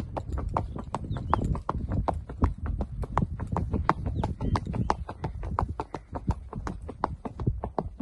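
Horse's hooves clip-clopping on a dirt track, heard from the saddle: a quick, even rhythm of several hoofbeats a second over a low rumble.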